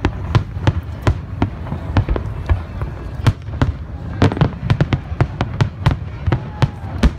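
Aerial fireworks shells bursting in quick, irregular succession, about three sharp bangs a second over a low rolling rumble.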